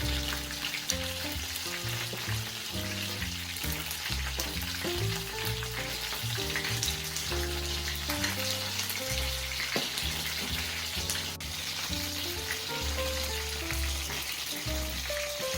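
Chicken deep-frying in hot oil: a steady sizzle with fine crackling throughout. Background music with a melody and bass line plays over it.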